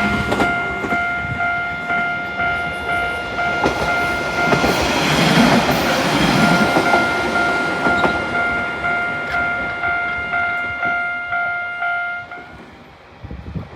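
Japanese electronic level-crossing alarm ringing in a steady repeating beat while a train passes over the crossing with wheel clatter, loudest about five seconds in. The alarm stops about twelve seconds in.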